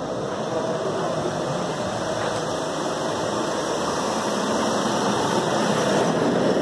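Skoda Laura TDI diesel engine idling steadily while HHO gas is fed into its intake during engine carbon cleaning.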